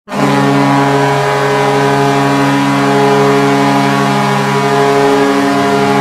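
Vancouver Canucks goal horn sounding one long, deep, steady blast.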